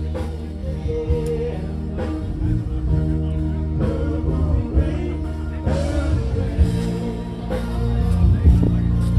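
Music with singing: a song with a steady bass line plays throughout.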